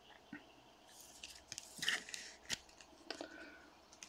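Faint handling of baseball cards in clear plastic sleeves: cards and plastic sliding and rubbing against each other, with a few light clicks and a longer rustle about two seconds in.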